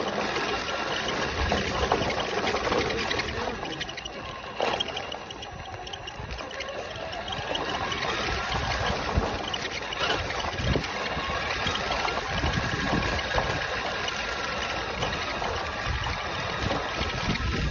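An RC truck driving over rough pavement, heard from on board: a steady rattling hiss from the tyres and chassis, with a thin motor whine that rises and falls as the speed changes. It eases off briefly about five seconds in.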